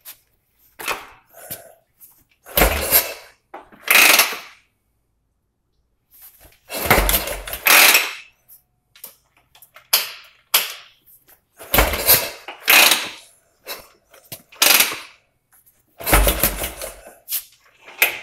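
Motorcycle being kick-started over and over. About four hard kicks come several seconds apart, each giving a deep thud and a short burst of noise as the engine turns over, with smaller bursts between. The engine never settles into a steady run.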